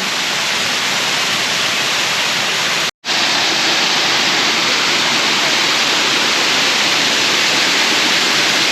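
Waterfall of water spilling over a dam, a steady, even rush. The sound cuts out completely for a moment about three seconds in.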